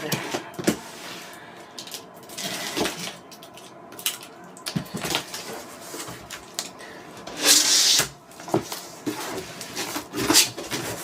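A cardboard box being cut open and its flaps pulled apart: scattered scrapes, clicks and rustles, with one loud tearing rasp about seven and a half seconds in.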